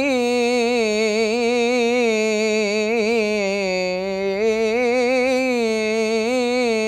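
A young male munshid's voice singing an unaccompanied ibtihal, one long melismatic note with rapid ornamental wavering in pitch. The line sinks lower about three and a half seconds in, then rises back.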